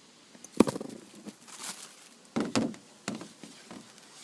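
A cardboard shoe box and its paper being handled: a sharp knock about half a second in, a short rustle of paper, then a few more knocks and taps.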